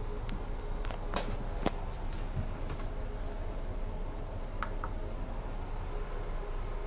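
Steady low rumble inside a passenger train carriage, with a few sharp clicks about a second in and a quick pair of clicks near the middle as buttons on the compartment's lighting control panel are pressed.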